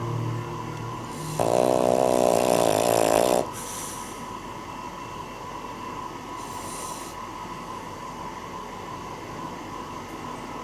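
A Cavalier King Charles Spaniel snoring: one loud, buzzing snore on the in-breath lasting about two seconds from about a second and a half in, then a breathy out-breath, and another soft breath a few seconds later.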